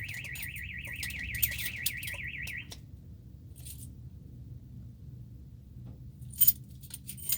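Car alarm siren sounding a high, fast-warbling tone that cuts off suddenly about a third of the way in. A few sharp clicks and a louder knock follow over a low hum.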